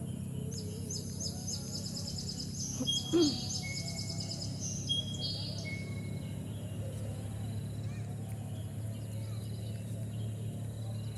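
A small bird gives a rapid run of high chirps for about five seconds, with a few short whistled notes, over a steady low background hum. About three seconds in there is one short, louder low-pitched sound.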